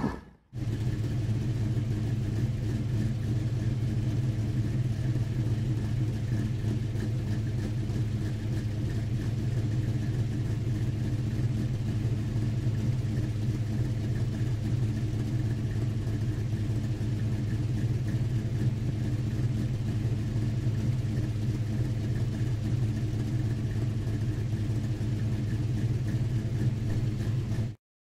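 An engine running steadily at idle, a constant low hum that does not change in pitch or loudness, cutting in just after the start and cutting off just before the end.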